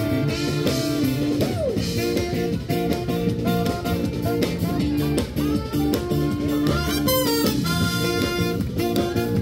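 Instrumental music playing continuously, with pitched notes over a steady rhythm.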